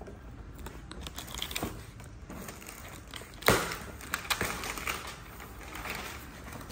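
Clear plastic shrink wrap crinkling and tearing as it is slit and peeled off a cardboard box, with the box flaps being handled. One sudden loud crack about halfway through.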